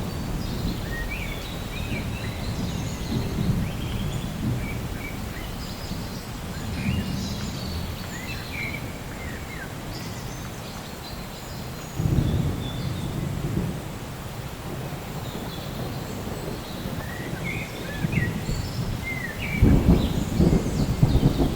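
Thunder rumbling low and continuously, with two louder peals swelling in suddenly, about halfway through and near the end. Birds chirp intermittently over a light rain hiss.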